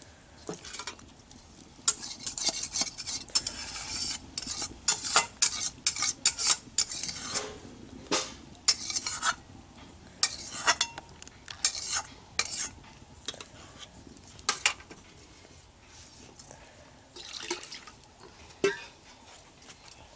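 A metal cooking utensil scraping and clinking against a metal wok in quick, irregular strokes. The strokes come thick for the first dozen seconds, then thin to a few scattered knocks.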